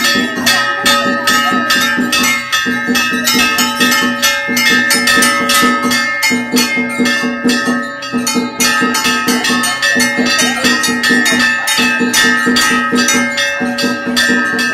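Temple bells ringing continuously over fast, steady percussion strikes, several a second, with a low tone pulsing in even phrases.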